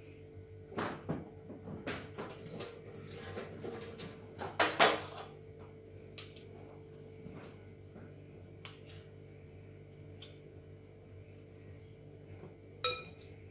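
Metal spoon and teaspoon clinking and scraping against a glass mixing bowl while scooping a sticky date, cacao and almond-butter mixture. The handling clatter is busiest in the first few seconds, then thins to occasional small clicks, with one sharp ringing clink near the end. A faint steady hum runs underneath.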